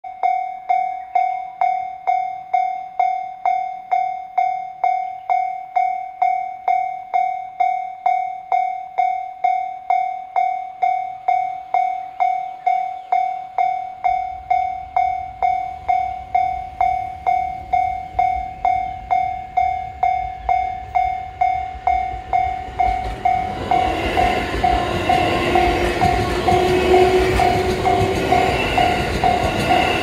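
Japanese level-crossing alarm ringing its electronic bell tone, about two strokes a second. The running rumble of an E531 series ten-car (5+5) electric train rises from about halfway and becomes loud near the end as the train runs past, with the crossing bell still sounding over it.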